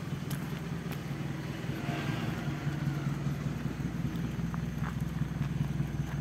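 The 1995 Daihatsu Feroza's 1.6-litre four-cylinder petrol engine idling steadily, a running engine the seller calls still smooth.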